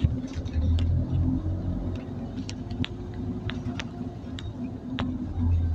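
Scania OmniCity city bus running, heard from inside the cabin: a steady low engine rumble and hum with a few faint clicks and rattles.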